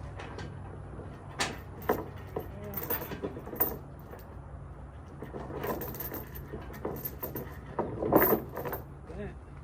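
Steel transport chain (3/8-inch grade 70) clinking and rattling as it is wrapped around a trailer's pipe stake, with irregular metal clanks; the loudest comes about eight seconds in.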